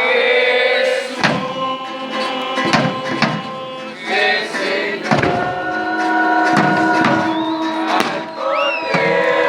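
Several voices singing held notes together, with sharp knocks or thumps falling every second or two.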